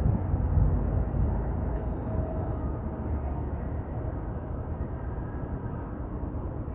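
Outdoor ambience: a steady low rumble with no clear single source.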